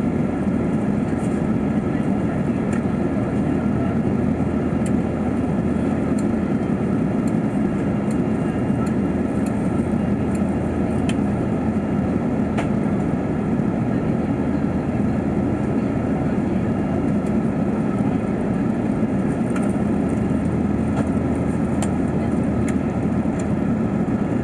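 Steady cabin roar of an Airbus A380-800, heard from an economy seat: an even, unbroken rumble of engine and airflow noise with a few faint steady tones above it.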